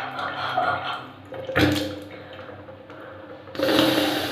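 Nasal saline rinse with a squeeze neti bottle: water running and dripping out of the nose. There is a sharp blast of breath through the nose about a second and a half in, and a longer one near the end.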